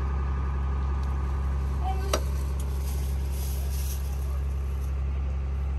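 A steady low rumble that neither rises nor falls, with a brief snatch of voice about two seconds in that ends in a sharp click.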